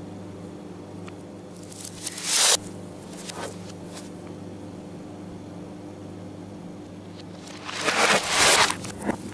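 Steady low hum, with two rushes of rustling, scraping noise that swell up and then cut off abruptly, the way sounds do when played backwards: one about two seconds in, and a longer one near the end.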